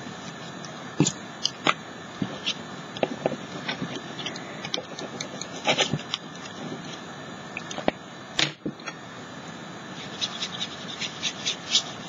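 Paintbrush working wet color over a paper cutout while the paper is handled: scattered light taps, clicks and scrapes at an irregular pace over a steady low hiss.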